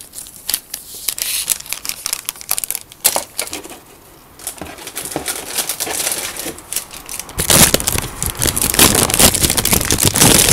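Clear plastic bag crinkling as plastic model-kit sprues are handled in and out of it, a dense run of small crackles and clicks that grows much louder over the last three seconds.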